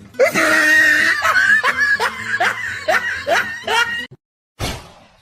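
A person laughing hard in quick repeated bursts, two to three a second, which cut off suddenly about four seconds in. A short burst of noise follows near the end.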